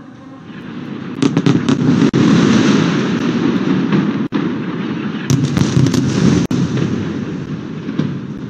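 Bomb explosions from air strikes: a cluster of sharp blasts about a second in and another around five seconds in, over a loud, continuous rumble that eases off near the end.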